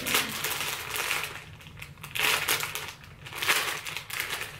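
Plastic packaging of a bundle of hair extensions crinkling as it is handled and opened, with louder crackly bouts about every second.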